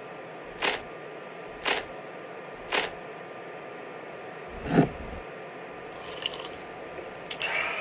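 Three footsteps about a second apart, then a heavier thud, as of an object dropped on the floor or someone sitting down hard, over a steady hiss, with a few small, faint clicks near the end.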